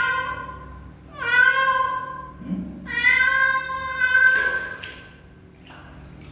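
Kitten meowing three times in distress while being bathed in a basin of water. The first two meows fall in pitch, and the third is long and held.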